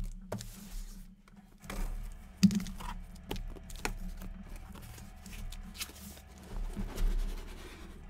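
Irregular clicks and light taps of objects being handled on a table, with one sharper knock about two and a half seconds in, over a steady low hum.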